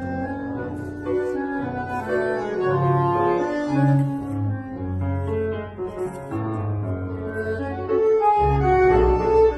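Live tango orchestra playing an instrumental tango, with piano and plucked double bass under held melody notes.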